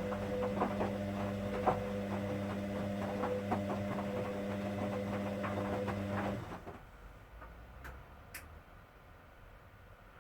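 Hoover washing machine running a wash, its motor humming steadily with irregular small clicks and knocks, then stopping abruptly about six seconds in; two faint clicks follow.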